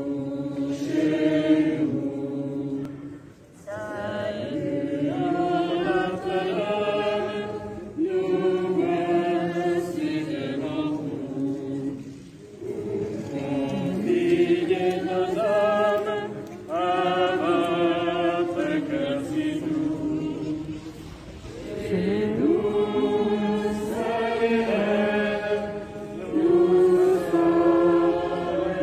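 A group of people singing a hymn together in unison, with no instruments, in phrases of a few seconds separated by short pauses.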